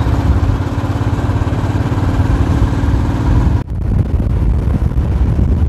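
Motorcycle engine running at cruising speed, heard from the rider's seat with a steady low pulsing rumble and road and wind hiss. A little past halfway the hiss drops off abruptly while the engine rumble goes on.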